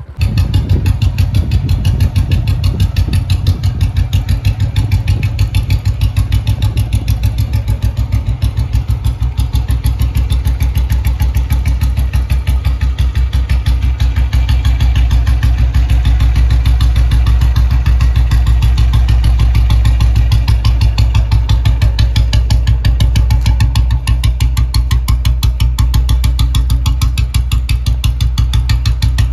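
Royal Enfield Bullet 350's single-cylinder four-stroke engine idling loudly, with a steady, even thump.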